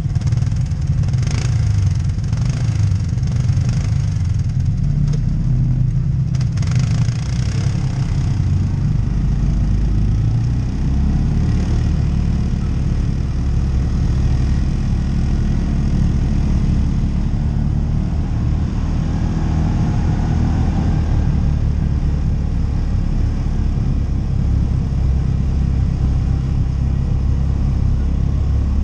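ATV engine running under way on a trail, with clattering knocks in the first several seconds; the engine note settles lower about ten seconds in.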